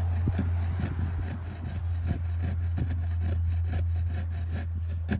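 Small hand saw cutting back and forth in a groove in a thin board, about two to three strokes a second, working the bottom of the groove level. A steady low hum runs underneath.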